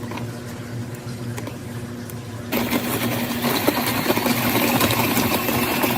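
Electric stand mixer running, its motor humming steadily as it beats cream cheese batter with broken Oreo pieces. About two and a half seconds in, it gets louder and busier, with a churning rattle over the hum.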